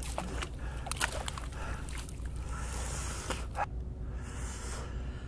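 Small splashes with a run of short knocks and taps as a freshly caught mackerel is lifted from the water and handled at the side of a kayak.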